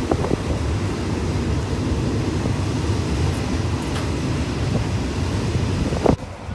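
Passenger train running slowly: a steady low rumble with wind buffeting the microphone. A brief knock comes about 6 seconds in, and then the sound drops off suddenly.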